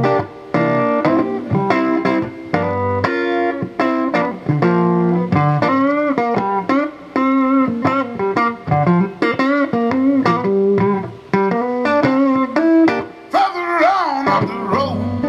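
Blues band playing an instrumental passage: a guitar picks a lead line with bent notes over a bass line, and a strongly wavering high note comes near the end.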